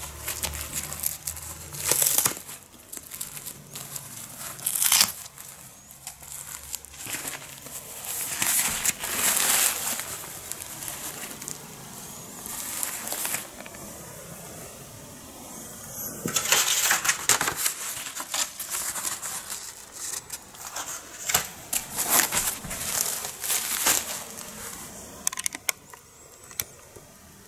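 Disposable nappies being handled and a used one rolled up, their plastic backing and wrapping crinkling and rustling in irregular bursts.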